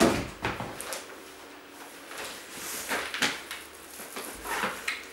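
Household things being handled and set down: a sharp knock at the start, then several shorter knocks and rustles.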